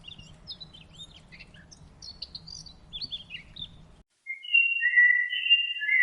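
Songbirds chirping and calling in quick, varied short notes over a low background hum. About four seconds in, the sound cuts off abruptly and is replaced by louder, long, high held tones that overlap and slide slightly in pitch, like a whistle or synthetic tone.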